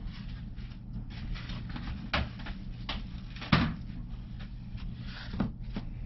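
Clear plastic storage container and lid handled over a worm bin: a few hollow plastic knocks and clunks, the loudest about three and a half seconds in, over a steady low hum.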